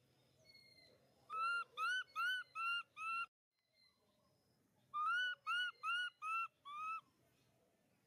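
An animal calling: two runs of five short, clear, high-pitched notes, each note rising and falling, a pause of about two seconds between the runs.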